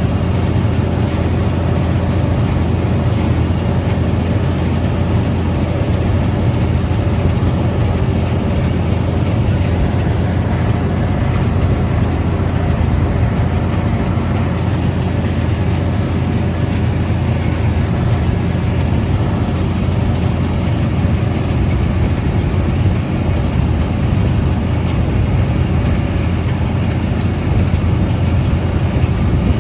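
Tractor engine running steadily under load while baling hay, a constant low drone with no change in speed.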